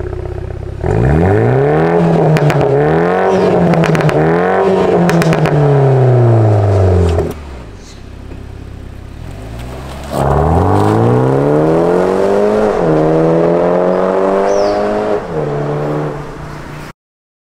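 BMW G20 330i's B48 turbocharged four-cylinder through a valvetronic performance catback exhaust: several quick revs from idle that fall back to idle, then about ten seconds in it accelerates hard, the pitch climbing steadily with two short drops like gear changes, before the sound cuts off suddenly.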